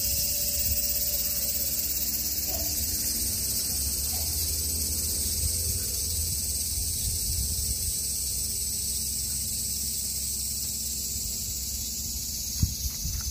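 A steady, high-pitched chorus of insects, over a low rumble, with one sharp knock near the end.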